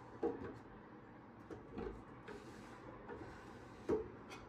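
Bamboo bin of a Seville Classics sliding bin organizer sliding on its black metal frame, with wooden knocks as it is pushed and pulled: a sharp knock just after the start, a softer one about two seconds in, and another sharp knock near the end.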